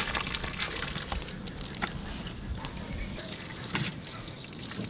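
Rice boiling in a large pot of water: a steady bubbling hiss with scattered pops and crackles.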